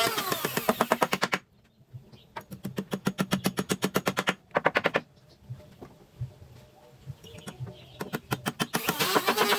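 A power drill winding down, then several bursts of rapid, even clicking at about ten a second, with short pauses between them; the motor runs up again near the end.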